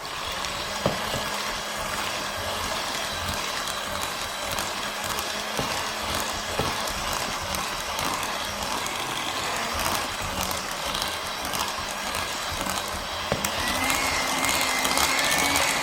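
Electric mixer running steadily, beating cake batter as an egg is worked in. A higher whine joins in near the end.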